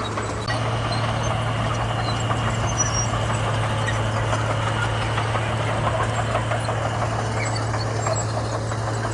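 Komatsu bulldozer's diesel engine running steadily with a constant low drone and mechanical clatter, a little louder from about half a second in.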